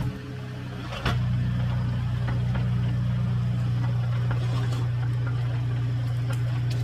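An engine idling steadily with an even low drone, which comes in sharply and louder about a second in.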